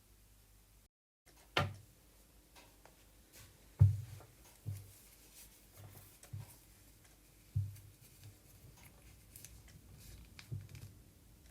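A dozen or so irregular soft knocks and taps in a small room, each with a low thud. The loudest comes about four seconds in, with others spaced a second or more apart.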